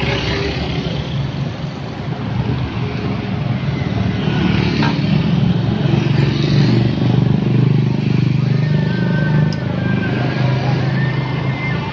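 Road traffic passing close by: a stream of motorcycles and cars going by with a continuous engine and tyre noise, swelling in the middle as the nearest vehicles pass.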